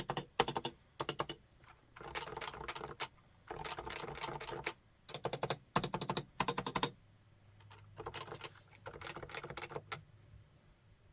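Typing on a Realforce 101 keyboard with Topre electrostatic capacitive switches: rapid runs of keystrokes in several bursts, the last two softer, stopping about ten seconds in.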